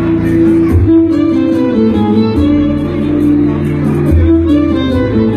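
Instrumental music: a melody over a backing track with plucked-string accompaniment and a bass line that moves to a new note every second or so.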